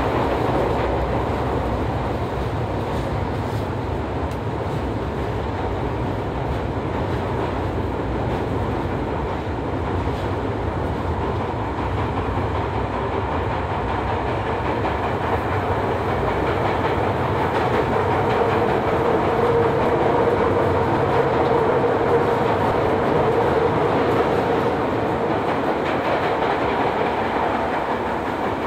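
Running noise of a Toei Shinjuku Line 10-000 series subway car heard from inside the car: a steady rumble and clatter of wheels on rail, growing somewhat louder about two-thirds of the way through.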